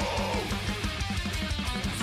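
Guitar-driven heavy rock music with a fast steady beat.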